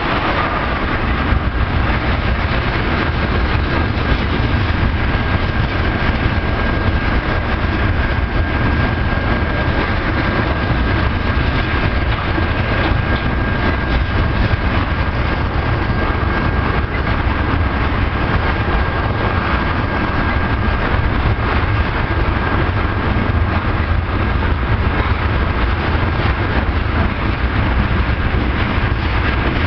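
Crude oil train's tank cars rolling past on the rails: a loud, steady rumble of wheels and cars, with a thin steady high tone running through it.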